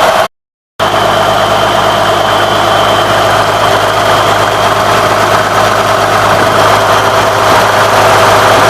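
Case IH 9270 4WD tractor's diesel engine idling steadily, with a half-second dropout of the sound just after the start.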